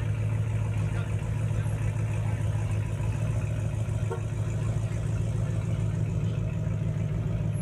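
Engines of classic Chevrolet and GMC C10-era pickup trucks idling as they roll past at walking pace, a steady low exhaust rumble.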